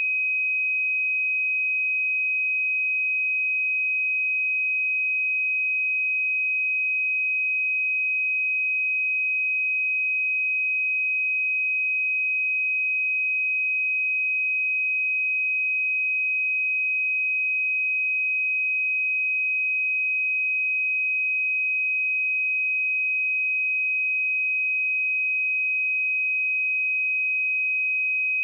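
A pure 2525 Hz sine-wave test tone, held steady at one pitch and level throughout: a single high, continuous beep-like tone used to check speakers or headphones.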